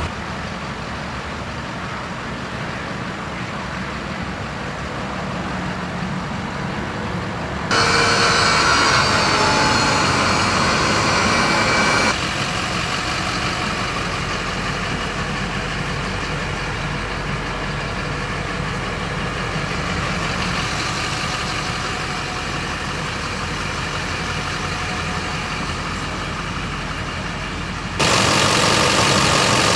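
Chevy 3500 flatbed dump truck's engine idling steadily. The sound jumps louder about eight seconds in, with a high whine on top for a few seconds, and jumps louder again near the end.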